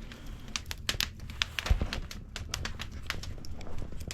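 Wood fire crackling in a fireplace, stoked to burn hard: irregular sharp snaps and pops.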